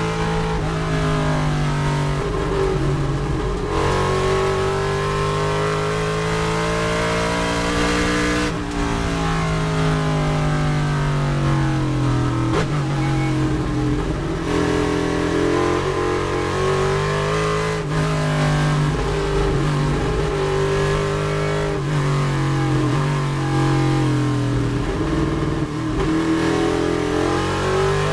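Chevrolet Nova GTO race car's V8 engine heard from inside the cockpit at racing speed. Its pitch climbs under acceleration and drops sharply several times at gear changes and braking.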